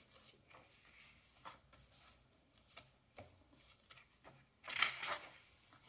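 Pages of a paper book being turned by hand: a few soft taps of paper, then a louder rustle of a page turning a little before the end.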